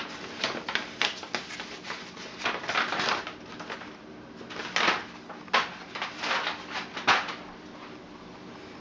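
Old, crumpled, creased paper sheets crinkling and rustling as they are handled, in irregular sharp crackles that die away near the end.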